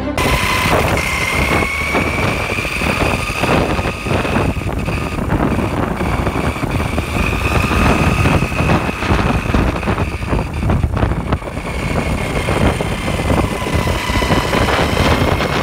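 Carburetted Honda Beat scooter running under way, with a harsh rattling and hissing from its left-side CVT casing over a thin steady whine. The noise comes from the clutch bell (clutch outer) rubbing against the CVT crankcase, because a non-original replacement part no longer holds it press-fit.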